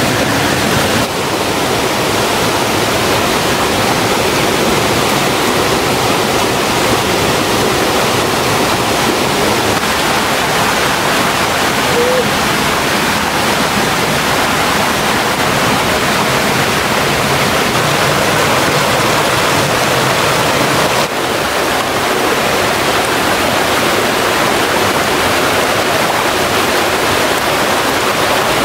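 Waterfall on a stream, the water rushing steadily and loudly.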